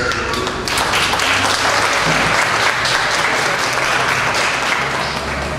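Audience applauding: many hands clapping together in a dense patter that eases slightly near the end.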